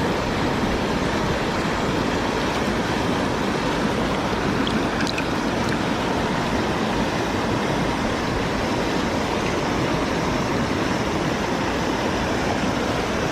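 Fast river rapids rushing steadily.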